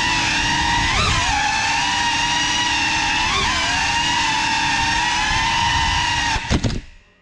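GEPRC CineLog35 cinewhoop's brushless motors and ducted propellers whining steadily in flight, the pitch dipping and wobbling briefly twice with throttle changes. Near the end come a few sharp knocks, and then the motor sound cuts off abruptly.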